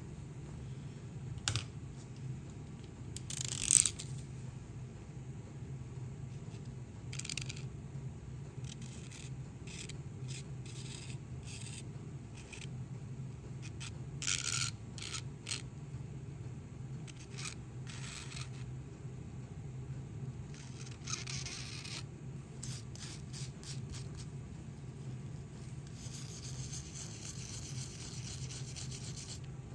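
Flat metal scraper blade scraping softened old coating off the metal housing of an air screwdriver, in short strokes here and there and a longer stretch near the end. A steady low hum runs underneath.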